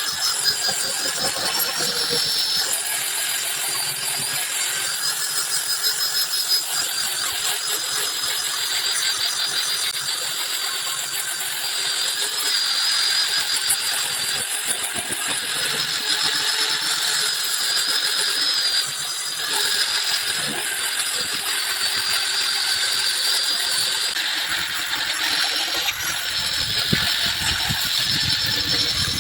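A handheld electric power tool running steadily with a high, slightly wavering whine, working solid kihujan (rain tree) wood during refinishing.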